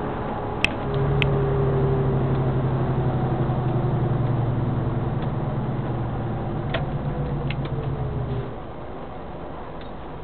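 Heavy vehicle's engine heard from inside the cab while driving. It grows louder about a second in, holds steady, then drops back about eight seconds in. Two sharp clicks come near the start.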